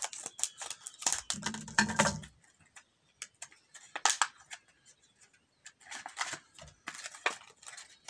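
Scissors cutting through a plastic blister pack, with a dense run of crackling about a second in. Then stiff clear plastic packaging crackles and snaps now and then as it is pulled apart by hand.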